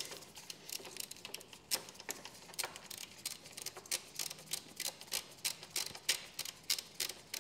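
Snap-on ratchet with a 12 mm socket clicking steadily, about three clicks a second, as a bolt is undone from a Yamaha Ténéré 700's footpeg bracket.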